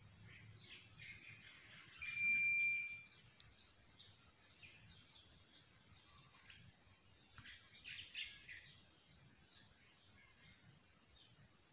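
Faint bird chirps and calls scattered through, thickest about eight seconds in. About two seconds in, a single steady high-pitched tone lasting about a second is the loudest sound.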